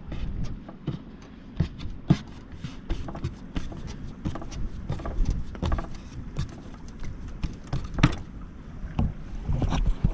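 Hands kneading a ball of damper dough on a floured surface: irregular soft slaps and knocks, the strongest about eight seconds in, over a low rumble of wind.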